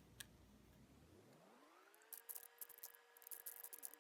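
Faint, rapid clicking of a Rubik's cube's plastic layers being turned quickly, sped up, starting about halfway through. A faint steady tone rises in pitch over about a second beneath it and then holds.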